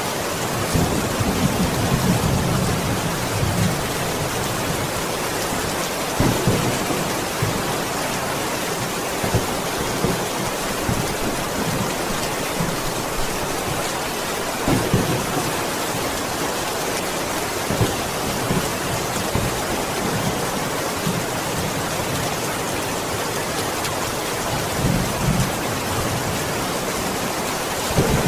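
Steady rain falling, an even hiss, with low rolls of thunder in the first few seconds and again near the end, and a few sudden louder hits along the way.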